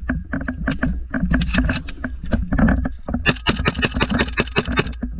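Small-arms gunfire: sharp cracks of rifle and automatic fire, at its densest for about a second and a half after roughly three seconds, over a steady low rumble of wind and movement on a helmet camera.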